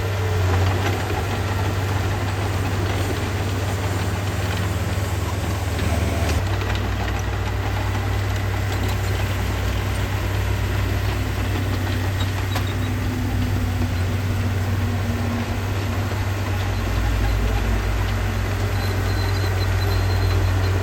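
Heavy construction machinery's diesel engine running steadily, its deep note shifting about six seconds in and growing stronger near seventeen seconds.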